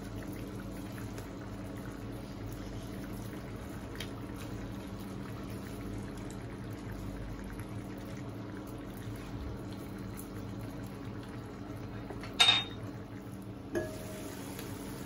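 Pork in coconut milk simmering in a frying pan as it is stirred with a silicone spoon: a steady low bubbling. About twelve seconds in comes a sharp clink with a brief ring, then a smaller knock, as a glass lid meets the pan.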